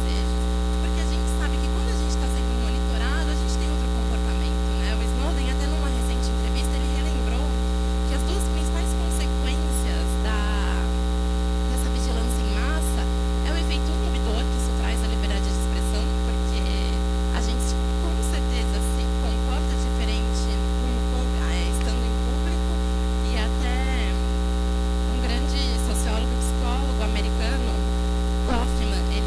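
Loud, steady electrical mains hum with its overtones, unchanging throughout. Faint, wavering bits of distant voices sit underneath.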